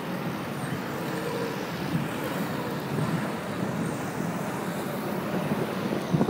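Steady outdoor street noise with vehicle traffic running past.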